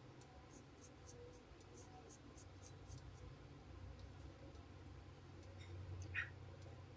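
Faint light clicks, a quick run of about four a second for the first three seconds, then a few scattered ones, with a short soft scrape about six seconds in.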